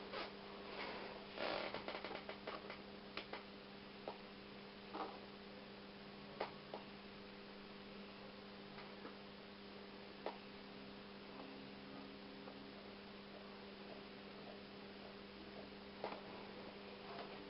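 Faint, steady electrical hum from a CRT television driving its flyback high voltage through a small glowing lamp, with scattered faint clicks that are most frequent in the first few seconds.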